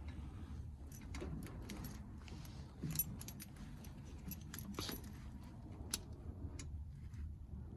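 Car keys jangling on their ring, with a few faint clicks as the key is turned in a freshly wired ignition switch. There is no starter cranking: the switch gets no response.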